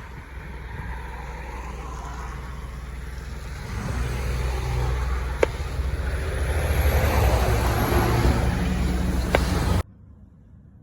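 Steady car engine and road rumble that grows louder about four seconds in, with two sharp clicks, cutting off abruptly near the end.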